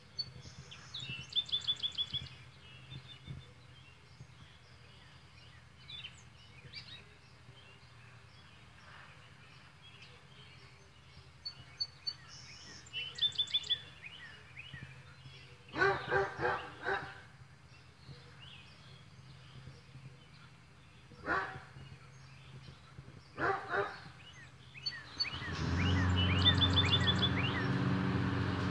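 Birds singing in a quiet yard, one short trilled song repeated three times, with a dog barking a few times. About 25 seconds in, a Toro Recycler walk-behind mower's gas engine starts and runs steadily.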